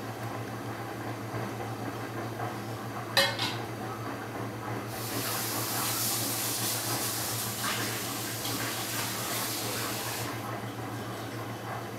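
A sharp metallic clink about three seconds in, with a few quick smaller clicks after it, from the disc-detainer pick and the small steel padlock being handled. A steady hiss follows for about five seconds.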